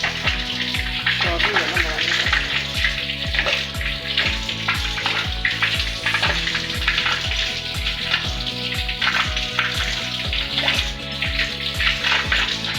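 Background music with a steady, fast bass beat and held notes, over a continuous hiss.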